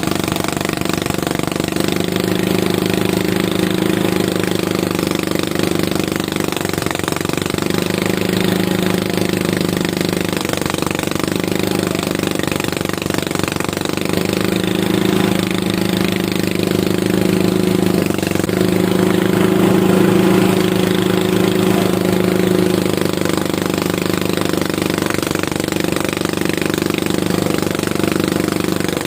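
Engine of a rice harvesting machine running steadily under load, its hum rising and easing slightly.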